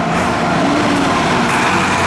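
A road vehicle driving past close by: steady engine and tyre noise.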